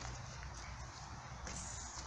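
Footsteps of a person walking down a path of leaf-strewn earth steps, a few crunching steps standing out over a steady low rumble.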